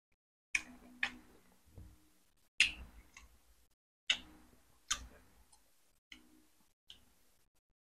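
Close-miked chewing of boiled chicken: about seven sharp, wet mouth clicks and lip smacks at uneven intervals, each dying away quickly.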